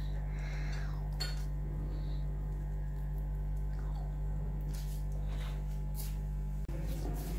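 A steady low hum, with a few faint light clinks and soft handling sounds from a hand tearing and scooping corn-flour roti on a plate. The hum cuts out for an instant near the end.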